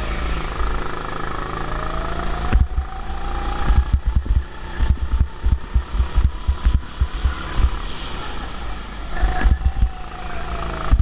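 Go-kart heard from on board while driving: a motor whine that rises and falls in pitch with speed over a heavy low rumble. Short knocks and rattles come thick through the middle.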